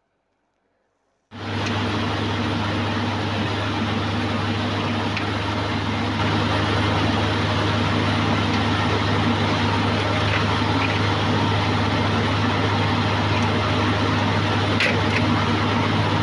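A heavy snow-clearing vehicle's engine running steadily with a deep hum, together with the rush of snow being thrown, heard from inside its cab. It starts suddenly about a second in, grows a little louder about six seconds in, and there is a short click near the end.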